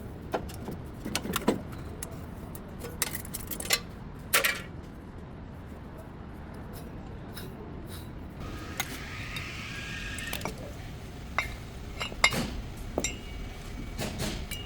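A steady low rumble with scattered metallic clicks and clinks, and a brief rising whine about nine seconds in.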